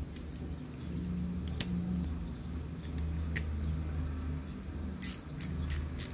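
Light metallic clicks of hand tools working the motorcycle's pinion (front sprocket) cover loose, with a quick run of about six sharp clicks near the end, over a steady low hum.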